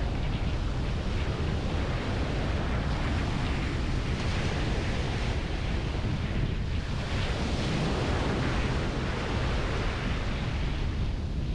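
Small waves breaking and washing up on a sandy shore, with wind buffeting the microphone into a steady low rumble.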